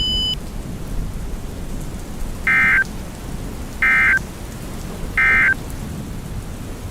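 EAS end-of-message signal: three short bursts of warbling SAME digital data tones, about 1.3 seconds apart, over a steady rushing noise. A high steady tone cuts off just after the start.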